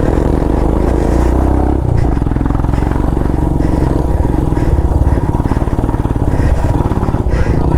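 Motorcycle engine running steadily as the bike is ridden along a dirt trail, its note shifting a little as the throttle changes.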